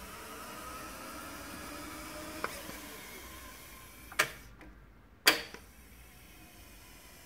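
Technics RS-1500 reel-to-reel tape deck fast-forwarding with a faint whine from the tape transport, which ends at a light click about two and a half seconds in as the transport stops. Two loud sharp clicks follow, about a second apart.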